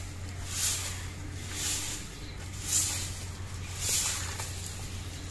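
Long bundled straw broom sweeping dry twigs and leaves over a concrete floor: a dry swish with each stroke, about one a second, five strokes.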